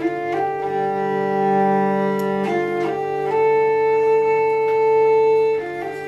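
Hurdy-gurdy playing a slow melody of long held notes over its steady drone strings, the strings sounded by the turning wheel.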